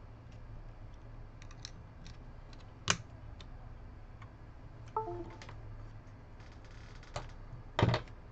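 Scattered light clicks and taps of small repair tools being handled on a workbench, with a louder knock near the end as a metal circuit-board holder is picked up; a steady low hum runs underneath.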